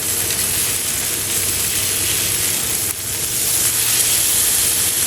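Ribeye steaks sizzling on a hot flat-top griddle, a steady hiss as the second side sears.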